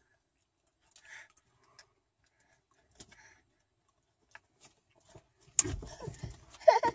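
Small scattered clicks and rustles of a toddler's car-seat harness being fastened. About five and a half seconds in comes a sudden thump with rustling, then a brief voice just before the end.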